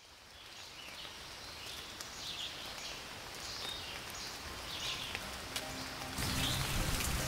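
Rain, fading in from silence and growing steadily louder. Low sustained music tones come in about five seconds in and swell near the end.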